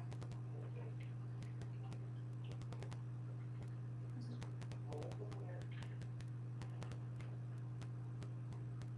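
Steady low electrical hum with many light, irregular clicks over it, several a second and uneven in spacing.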